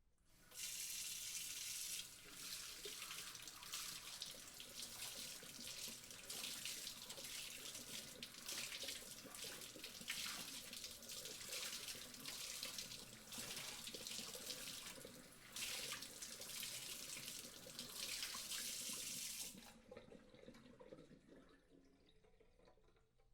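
Water running from a kitchen tap into a sink, starting about half a second in, with an even rushing splash. Near the end the flow stops and a quieter trickle and drain fades away.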